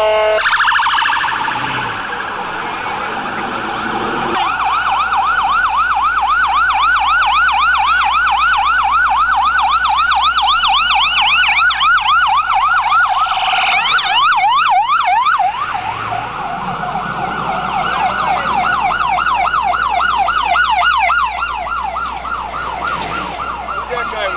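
Emergency sirens of FDNY ambulances yelping, each sweeping rapidly up and down several times a second, with a second siren overlapping about two-thirds of the way through. A brief steady blast sounds at the very start.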